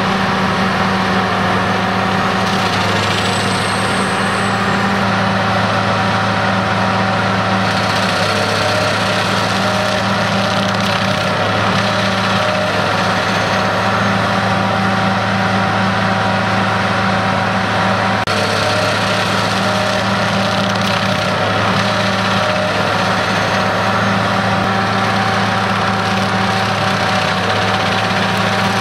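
Tracked stump grinder working: its engine running with a steady drone and the cutter wheel grinding into a tree stump.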